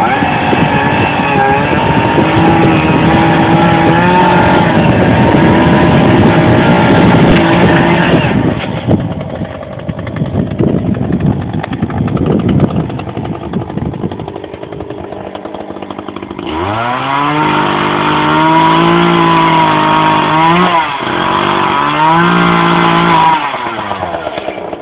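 Chainsaw engine running at full throttle, easing off to a rough lower idle about eight seconds in. It revs sharply back up about sixteen seconds in, holds high with a couple of brief dips, and drops off near the end.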